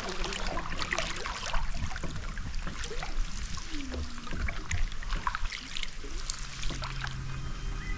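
Canoe paddles dipping and pulling through calm water, with small splashes and drips. Soft music comes in faintly about six seconds in.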